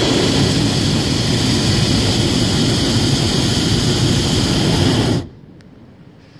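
Hot air balloon's propane burner firing: a loud, steady blast that cuts off suddenly about five seconds in.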